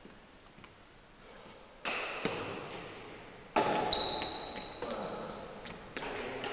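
Badminton rackets striking a shuttlecock in a rally: three sharp hits, each with a ringing ping and a long echo in the hall.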